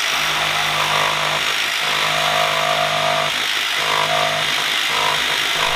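Jigsaw running and cutting steadily, its note shifting and recovering a few times as the blade bears into the material.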